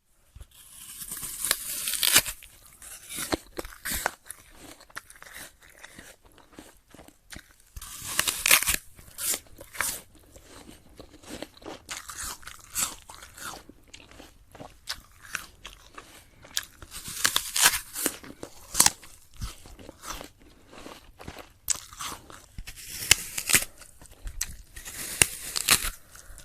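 Bites into a very crunchy apple followed by chewing, crunch after crunch: several loud bites come a few seconds apart, with quieter crackly chewing in between.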